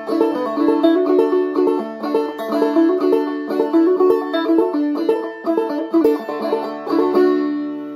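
Semi-fretless banjo in aDADE tuning played clawhammer style, a fiddle-tune melody in D over a steady rhythm of plucked notes. A little after seven seconds in it ends on a final strike that rings and fades.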